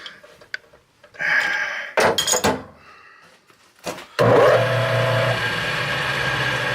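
A few light metallic clinks and knocks of metal parts being handled, then a power-tool motor starts abruptly about four seconds in and runs steadily with a low hum and a hiss.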